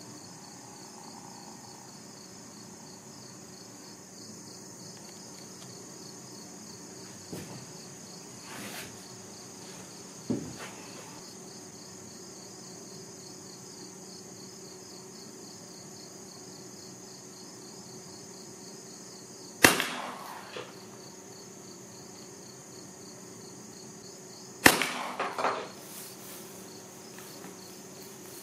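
Two shotgun shots from a Fabarm shotgun firing 1-ounce target loads, about five seconds apart, each a sharp loud blast with a short echo. Insects chirr steadily throughout, and a few faint knocks come before the first shot.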